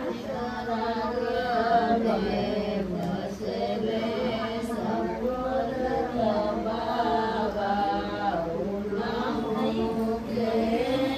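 Voices singing a chant-like devotional song in long, continuous melodic phrases over a steady low drone.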